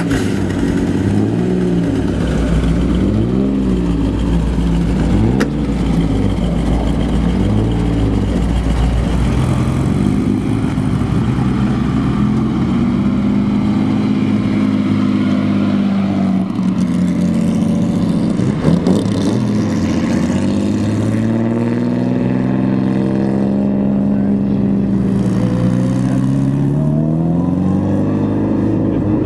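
A car engine being revved: short quick blips up and down in pitch for the first several seconds, then longer revs that climb, hold and fall away several times.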